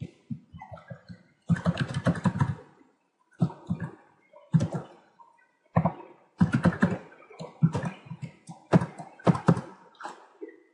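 Typing on a computer keyboard: bursts of rapid key clicks with short pauses between them.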